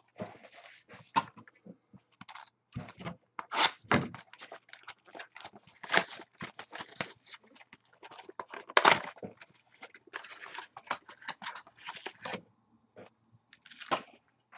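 Hands opening a cardboard trading-card box and handling a foil card pack: irregular rustling, scraping and crinkling of cardboard and wrapper, with a few louder snaps.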